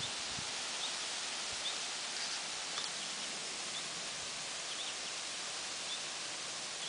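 Steady outdoor background hiss with faint, short, high bird chirps repeating about once a second.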